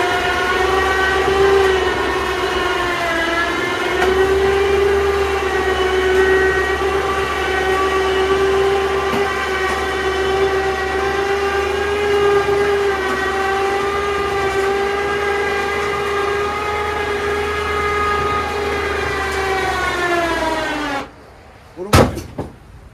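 Electric winch whining steadily as it pulls a lawn tractor up loading ramps into a van, its pitch dipping briefly a few seconds in under the load. The whine stops sharply near the end, and a single sharp click follows.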